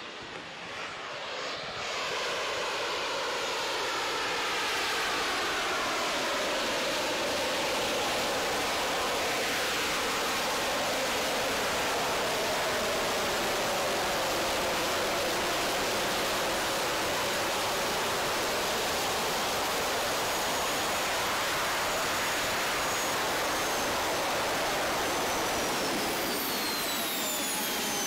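Small turbojet engines of a backpack jetpack running at flight thrust: a steady loud jet roar whose tone sweeps slowly as the flier moves. Near the end a high whine falls in pitch as the engines spool down.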